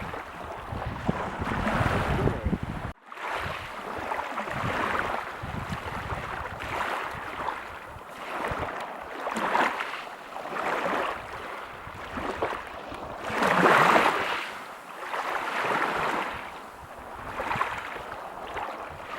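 Ocean waves breaking and washing on a beach, in repeated swells of hiss every second or two, the largest about two-thirds of the way through. There is a brief sudden dropout about three seconds in.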